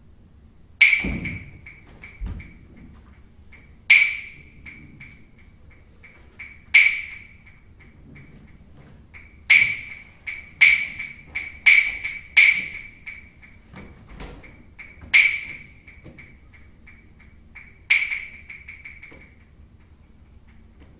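Sharp, ringing clacks of struck percussion, wood-block-like, about nine in all: spaced a few seconds apart, then a quicker run of four or five, each ringing briefly at one high pitch. A few low thuds sound underneath, one near the start and one about fourteen seconds in.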